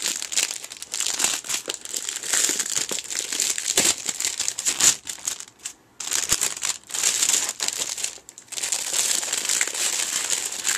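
Clear plastic wrapping crinkling and crumpling as it is pulled off a figure box, a dense run of crackles that stops briefly twice, about halfway through and again a little later.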